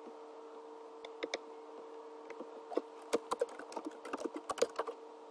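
Typing on a computer keyboard: irregular key clicks that begin about a second in and come thicker after the halfway point, over a faint steady hum.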